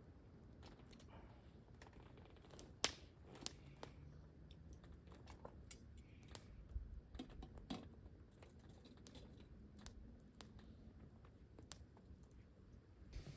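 Faint, sparse wood-fire crackling: irregular sharp pops and clicks over a low, quiet rumble of wind, with the loudest pop about three seconds in.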